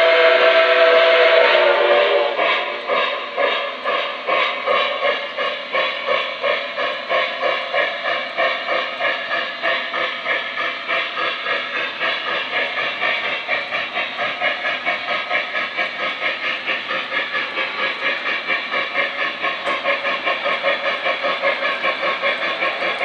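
Lionel Flyer S-gauge Berkshire model steam locomotive's onboard sound system: a steam whistle blows for about two seconds, then steady rhythmic steam chuffing at roughly three to four chuffs a second, picking up slightly, as the locomotive runs on the track.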